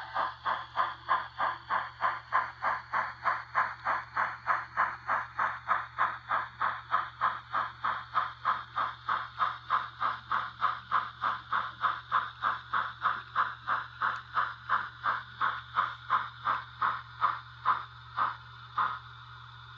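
ESU LokSound sound decoder in an N scale Kato 2-8-2 steam locomotive playing steam exhaust chuffs through its tiny speaker, about three a second, as the model runs. Near the end the chuffs space out and stop as the locomotive slows.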